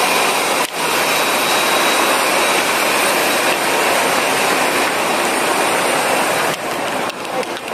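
Aircraft jet engines running: a loud, steady rush with a high whine over it, dipping briefly about a second in and again near the end.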